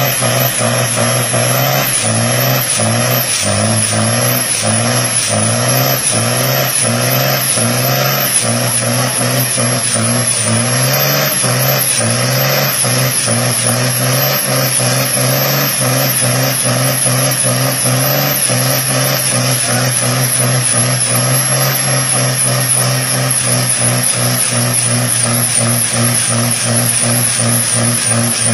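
Scania 113H truck's 11-litre six-cylinder diesel held at high revs during a stationary burnout, its drive tyres spinning and squealing on the pavement. The engine note wavers up and down in quick steps for the first two-thirds, then holds steadier.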